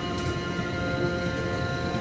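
Steady hum of a cargo ship's machinery: a low rumble with several constant tones held without change.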